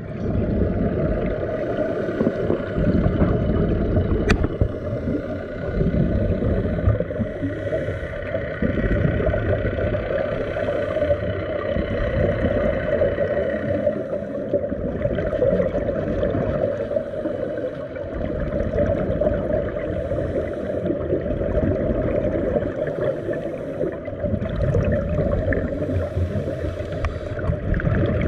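Muffled underwater noise heard through a GoPro's waterproof housing: a scuba diver's regulator breathing and exhaust bubbles, swelling and fading every few seconds. A faint steady high whine runs through the first half and stops about halfway.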